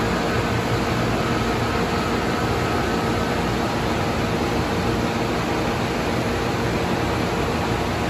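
1983 Whirlpool NCHBA heat pump running steadily in cool mode just after startup: a constant rush of air from its condenser fan over a low steady hum from its Bristol H21B reciprocating compressor.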